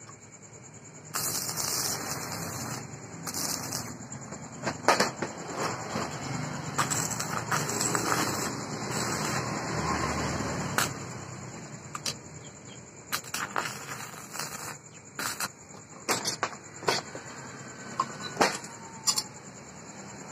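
Stick (MMA) arc welding with a small inverter welder: the arc sizzles steadily from about a second in until about halfway through. After that comes a string of short, sharp clicks and knocks.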